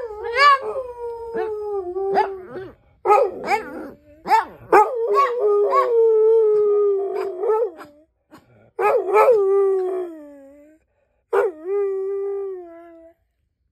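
Hound dog howling in four drawn-out bouts. Each starts with short, sharp cries and then settles into a long held note that sags in pitch at the end.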